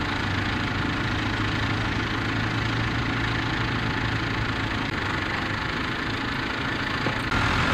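Diesel tractor engines running steadily while pulling ploughs through stubble, with a low, even drone. About seven seconds in the sound steps up a little louder and changes.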